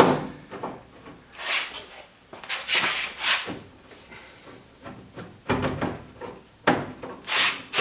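A series of short knocks and scrapes from parts and tools being handled while working on a pickup truck's door and door handle.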